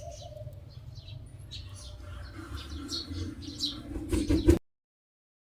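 Caged aviary birds giving short, high chirps over a low background rumble; the sound cuts off abruptly about four and a half seconds in.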